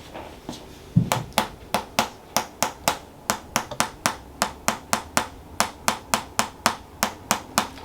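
A quick run of about two dozen sharp taps, roughly three to four a second, starting about a second in.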